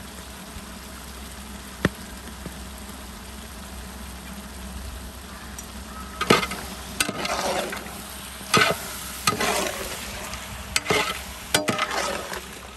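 Tender-jackfruit biriyani masala sizzling steadily in a large metal pot; from about six seconds in, a ladle scrapes and stirs against the pot in repeated short strokes as the masala powder is mixed in.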